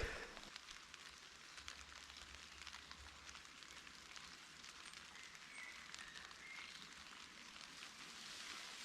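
Light rain pattering faintly, a steady scatter of small drop ticks.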